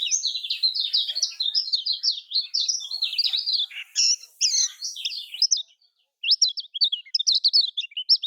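Kecial kuning, a white-eye, singing in a fast, chattering run of high chirps. It breaks off briefly about five and a half seconds in, then carries on in looser phrases. This is the lure song used to set a silent bird of the same kind singing.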